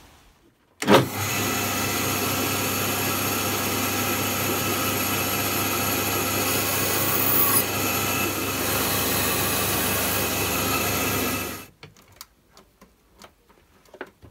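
Bandsaw running and cutting a thin ash stick, a steady motor hum under the noise of the blade, which starts suddenly about a second in and cuts off suddenly near the end. A few faint clicks and knocks follow.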